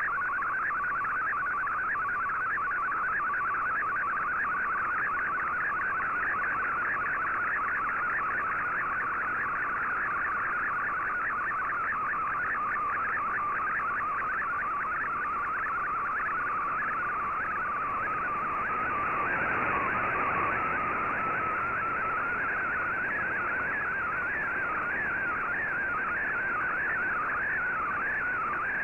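MFSK color-picture transmission from the Shortwave Radiogram broadcast, heard through a shortwave receiver in AM: a fast-warbling tone that wanders up and down in pitch as each line of the image is sent, over background hiss.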